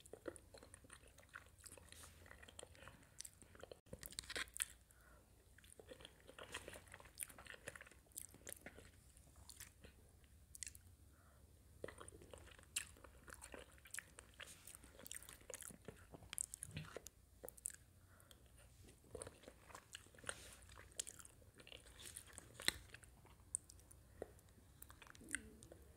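Close-miked chewing and mouth sounds of a person eating from a spoon: quiet, with many short wet clicks and smacks scattered throughout.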